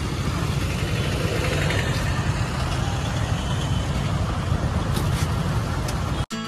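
Steady street traffic noise from motorbikes and auto-rickshaws running along a busy road, with a heavy low rumble. It cuts off suddenly just before the end.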